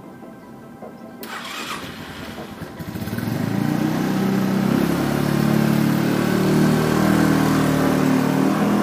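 Motorcycle engine running, growing much louder about three seconds in as the bike pulls away and picks up speed.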